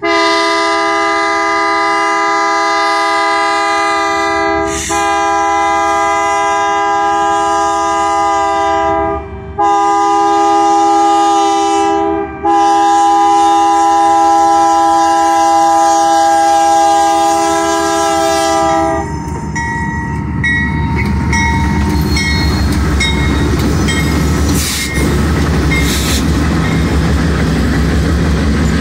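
GE C44-9W diesel locomotive sounding its multi-note chime horn for a grade crossing in four blasts: long, long, short, long. The horn then stops and the locomotive's engine and wheels rumble past close by, with a few clicks.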